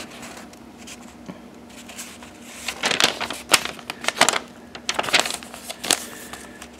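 Paper pages of a sale flyer being turned and handled: a run of short rustles and crinkles, most of them from about three to six seconds in.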